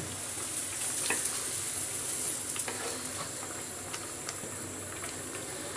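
Thin lentil-and-rice khichuri simmering in an aluminium pot with a steady hiss while a spoon stirs through it, with a few light clicks of the spoon on the pot.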